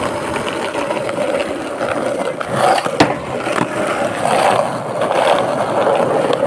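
Skateboard wheels rolling over rough concrete, a steady rolling rumble, with a sharp click about three seconds in.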